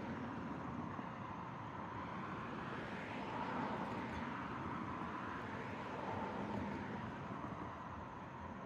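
Vehicles passing by on a road, their tyre and engine noise swelling and fading as each goes past; about three passes, with a faint steady tone running under them.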